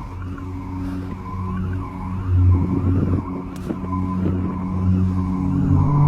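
A low, steady droning hum with a fainter higher tone that wavers up and down in a slow, even wobble, one of the eerie 'strange sounds from the sky' recordings.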